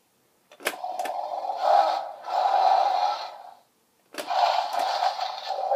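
Mattel Roarivores Sinoceratops toy dinosaur playing its electronic roar sounds through its small built-in speaker, loud, set off by pressing the button on its back. A click comes at each press, then one roar runs for about three seconds, and a second starts about four seconds in.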